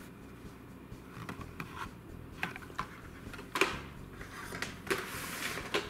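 Plastic blister-carded Hot Wheels cars and their cardboard case being handled. There are a few light clicks and knocks, one louder about three and a half seconds in, then a brief rubbing slide of cardboard near the end.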